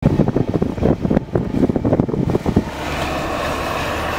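Gusty wind buffeting the microphone, with irregular low rumbles and bumps. About two and a half seconds in it gives way to steady road noise inside a moving car's cabin.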